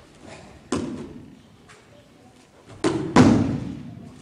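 Heavy thuds of bodies and feet hitting tatami mats during aikido throws: one thud about a second in, then two more close together near the end, the last the loudest, ringing on in the large hall.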